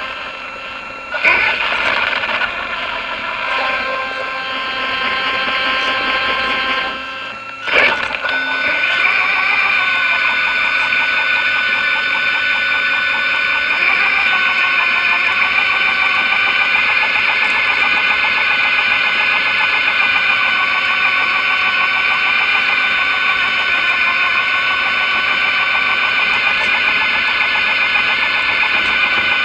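Arrma Big Rock 3S RC truck's sensored brushless motor and drivetrain whining steadily as it drives over wet concrete. There is a softer, changing stretch early on, a brief dip and a sharp knock just before eight seconds in, and then a steadier, louder whine.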